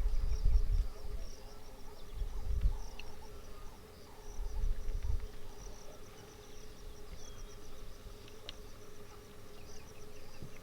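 Natural ambience of insects chirring, a steady run of quick high chirps, with a steady hum beneath. Three bursts of low rumble come in the first half and are the loudest sounds.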